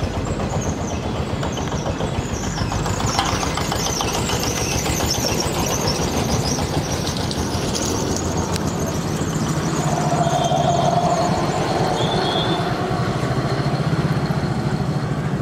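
An engine running steadily, with a brief higher squealing tone about ten seconds in.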